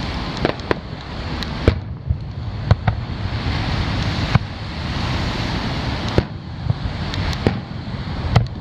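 Aerial firework shells launching and bursting, with sharp bangs at uneven intervals, about one a second, over a steady rushing noise.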